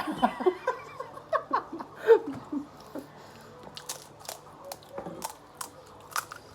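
Brief giggling, then sharp, crisp crunches of panipuri shells being bitten and chewed, about two a second.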